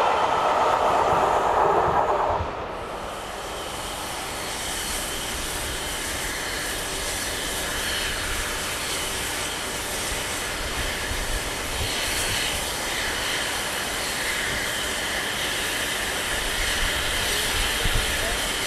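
For the first two and a half seconds, the loud rush of a steam-hauled train that has just passed, cut off abruptly. Then the steady hiss of steam escaping from the standing steam locomotive 60163 Tornado.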